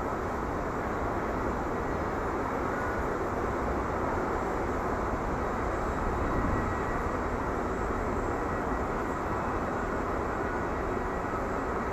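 Boeing 737-800 jet airliner's CFM56 engines giving a steady, even rumble during its landing.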